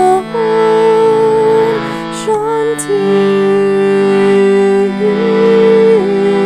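Mantra chant music: a voice holding long sung notes that change pitch a few times, over sustained lower accompanying tones.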